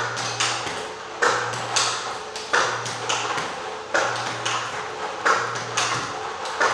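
Table tennis ball clicking off the table and the bat in a steady practice rally of forehand strokes, a sharp pair of clicks about every 1.3 seconds.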